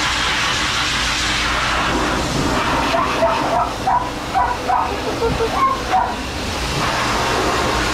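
Pet grooming dryer blowing steadily. Between about three and six seconds in, a dog makes a quick series of short, high-pitched calls over it.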